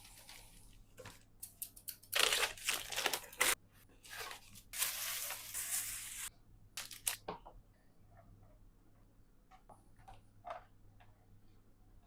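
Rough tearing or crunching noises in two stretches of a second or two each, with scattered short clicks and taps between them.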